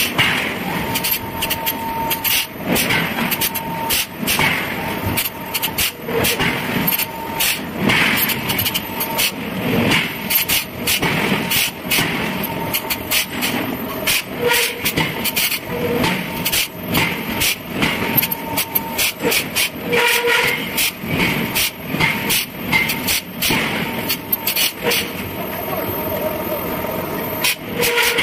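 Forging-shop din: frequent, irregular sharp metal clanks and knocks over a steady mechanical noise, with brief ringing tones from struck steel.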